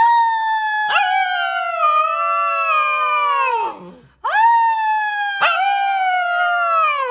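A husky-type puppy howling: two long howls, each rising quickly at the start and then sliding slowly down in pitch.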